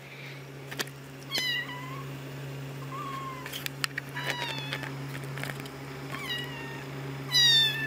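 Young Scottish Fold cat meowing: a series of short, high-pitched meows, about four clear ones, with the loudest near the end.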